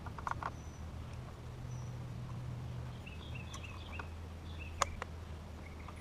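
A few small sharp clicks as the fuel line with its inline fuel filter is handled and fitted, the loudest near the end, over a low steady hum. Birds chirp briefly in the background a little past halfway.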